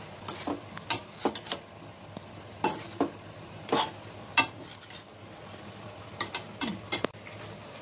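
Metal spatula scraping and knocking against a metal kadai while boiled basmati rice is folded into chicken gravy. There are about a dozen short strokes at an uneven pace, with a cluster near the end.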